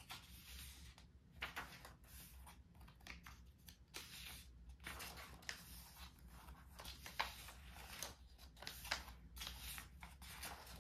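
Paper pages of a thin album lyrics booklet turned by hand, with a string of soft rustles and flicks as several pages go by in a row.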